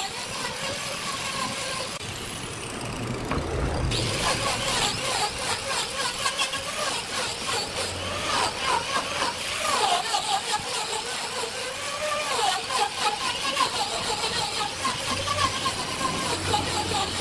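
Makita angle grinder with an abrasive disc grinding and sanding carved wood: a continuous gritty grinding hiss over the motor's whine, its pitch wavering as the disc is pressed into the wood and eased off. The hiss thins out briefly about two seconds in.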